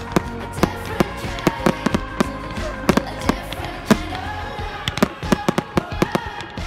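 Aerial firework shells bursting in a rapid, uneven string of bangs, several a second.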